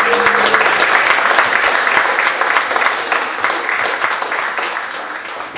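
Audience clapping and applauding at the end of a song, a dense steady patter that begins to thin and fade near the end.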